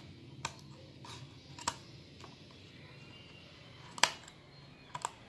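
Scissors snipping into an empty Cup Noodles cup: a few separate sharp clicks, the loudest about four seconds in.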